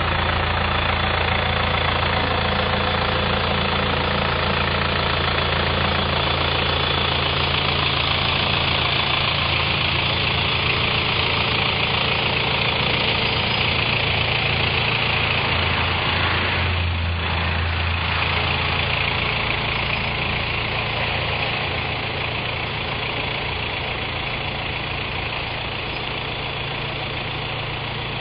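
2001 GMC W4500 cab-over tow truck's engine idling steadily, with a brief change in its note about two-thirds of the way through and a slight easing toward the end.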